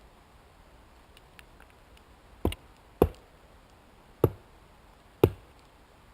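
Four sharp knocks of split wood striking wood, irregularly spaced in the second half, as pieces are laid onto a teepee fire lay.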